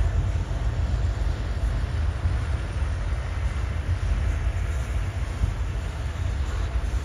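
Norfolk Southern double-stack intermodal freight train rolling past close by: a steady, deep rumble of the wagons' wheels on the rails.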